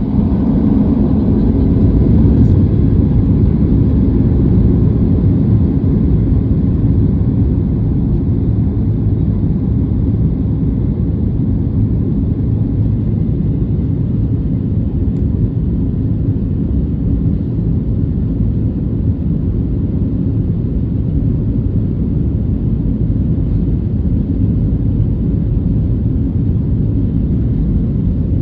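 Boeing 737 jet engines at takeoff thrust during the takeoff roll: a loud, steady low rumble, loudest a few seconds in and then holding level.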